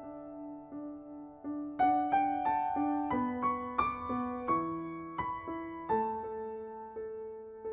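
Background piano music: a gentle line of struck notes that climbs to higher notes in the middle and settles onto longer held notes near the end.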